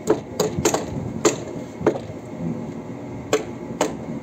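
Claw hammer driving nails into timber rafters: a run of sharp strikes, five in the first two seconds, then a pause and two more near the end.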